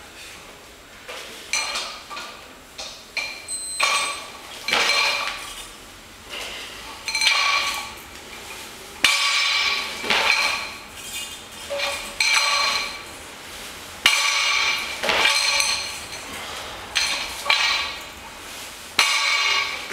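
Steel barbell loaded with bumper plates clanking and ringing over and over during repeated cleans, the plates and sleeves rattling on the bar with each rep. The clanks come about every second or two, with a few sharper, louder ones in the second half.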